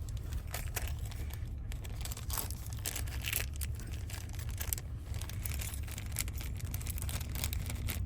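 Irregular light clicks and rustles of small lock parts and tools being handled while a van door lock cylinder is worked on, over a steady low hum.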